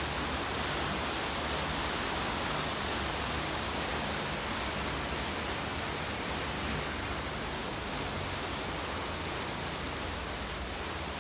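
Steady rushing noise aboard a moving boat: wake water churning behind the stern and wind, with a low engine rumble beneath.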